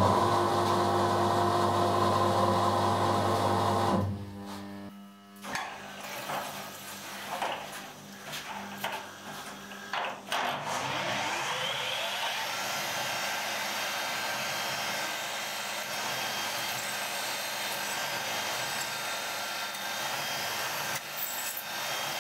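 MAHO MH400E CNC milling machine drilling holes with a twist drill under flood coolant. A steady running noise gives way to scattered clicks, then the spindle spins up with a rising whine about halfway through, followed by a steady drilling noise.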